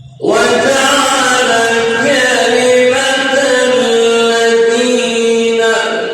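A man reciting the Quran in melodic tajweed style, drawing one long ornamented phrase over held notes from about a quarter second in. He breaks for breath near the end.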